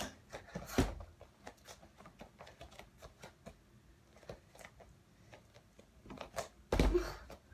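Two heavy thuds of a person landing from jumps on a wooden floor, about a second in and again near the end, with light taps and creaks of bare feet between.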